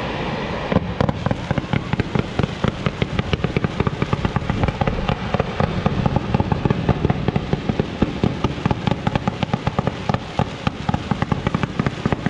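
Daytime fireworks going off in a rapid barrage of sharp bangs, several a second. The bangs start about a second in and stop just before the end.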